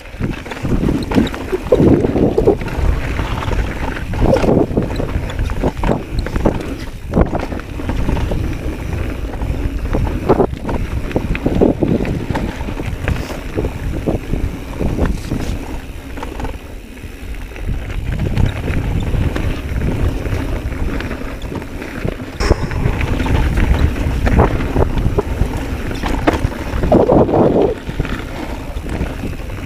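Mountain bike riding over a rough dirt trail: steady wind rush on the microphone and tyre rumble, broken by frequent knocks and rattles as the bike hits bumps and rocks.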